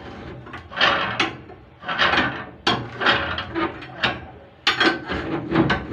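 Irregular scraping and rubbing strokes on wood, about eight in a row, each a short noisy stroke that fades, from building materials being worked by hand.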